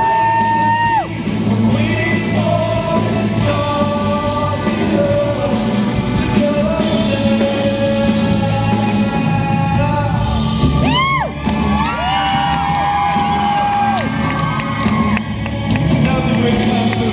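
A pop song sung live with band accompaniment, in the echo of a large hall, with fans screaming and whooping over it; one quick rising-and-falling cry comes about eleven seconds in.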